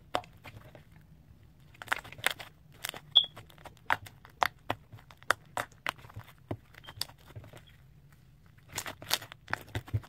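Slime being pressed, folded and pulled by hand, giving irregular sharp clicks and pops over a faint low hum.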